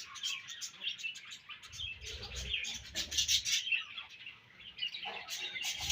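A colony of budgerigars chirping and warbling, many quick overlapping calls at once.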